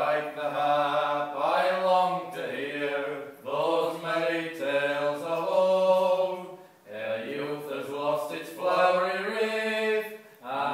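Two men singing an old English song together, unaccompanied. Their voices hold long notes in phrases, with short breaks about every three and a half seconds.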